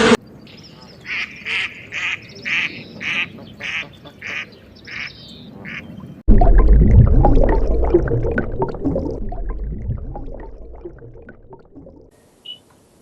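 A waterfowl gives about ten short calls in a row, evenly spaced roughly two a second. About six seconds in, a sudden loud, low, noisy rumble starts and fades away gradually over several seconds.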